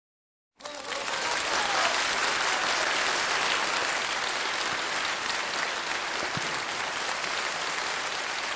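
Crowd applauding, starting suddenly after about half a second of silence and going on steadily.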